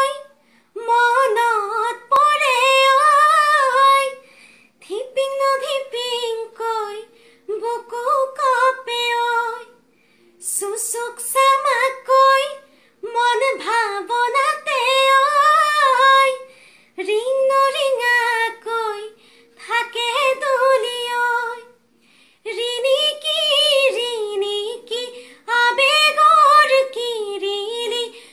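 A woman singing unaccompanied, in short phrases of one to three seconds with brief pauses for breath between them.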